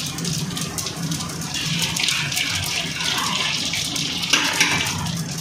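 Cumin seeds, bay leaves and dried red chillies sizzling and crackling in hot oil in an aluminium kadai: the whole spices being tempered at the start of the curry's gravy. The sizzle gets louder about a second and a half in.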